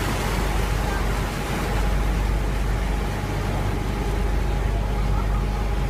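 Steady low drone of a lake cruise ship's engines heard from its open deck, with a faint steady whine above it and an even rush of wind and water.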